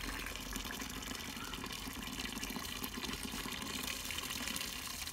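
A thin stream of tap water pouring steadily into a plastic basin of water where chopped greens are being rinsed in a colander.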